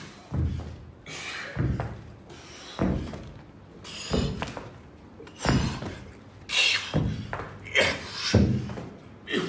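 Heavy dumbbells thudding down on a carpeted floor, one dull thump about every second, as they are walked forward in a crawling exercise. Short, hard breaths of effort come between the thumps.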